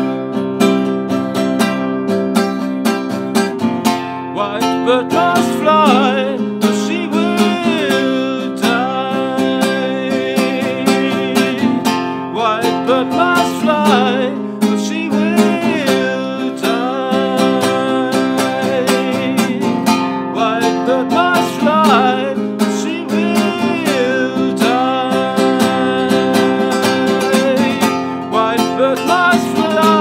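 Nylon-string classical guitar strummed in steady chords, with a man's voice singing over it from a few seconds in, in long, wavering held notes.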